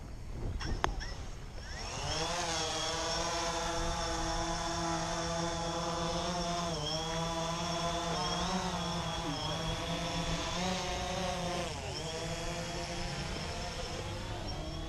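A DJI Phantom 3 Standard quadcopter's motors and propellers spin up with a rising whine about two seconds in as it lifts off, after a single sharp knock. It then hovers and flies with a steady buzzing whine that dips and rises in pitch now and then as it manoeuvres.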